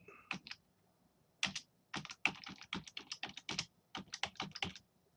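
Typing on a computer keyboard: a run of quick keystrokes, a pause about a second in, then a fast burst of key presses.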